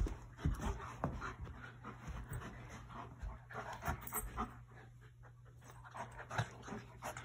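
An Alaskan Malamute and a Newfoundland puppy play-wrestling on carpet. There is dog panting, with irregular scuffling and a few soft knocks as they grapple and mouth at each other.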